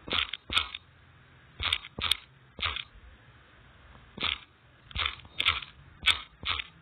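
Short clicks of typing on a smartphone's on-screen keyboard, one key tap at a time at an uneven pace, about ten in all.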